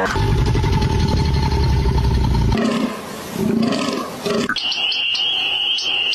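A large animal's deep, rough roar for about two and a half seconds, followed by a couple of shorter pitched calls and then a steady high whistling tone near the end.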